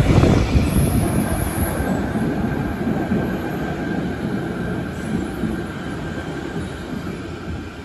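Fukuoka City Subway 3000A series linear-motor metro train running into the platform: a loud running rumble that fades steadily as it slows, with a faint steady high whine through the middle.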